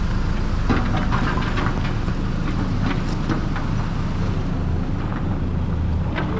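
A 4x4 vehicle driving over a rough track, its engine running steadily with irregular knocks and rattles throughout.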